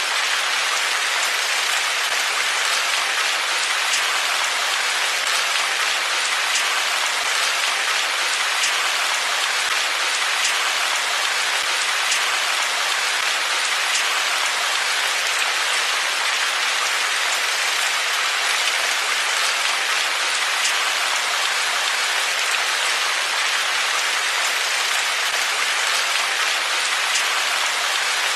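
Steady, even rain falling and pattering on surfaces, with faint scattered drop ticks.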